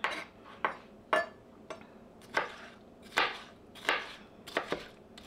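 Kitchen knife slicing a bell pepper on a cutting board: about eight separate knocks of the blade on the board at an uneven, unhurried pace.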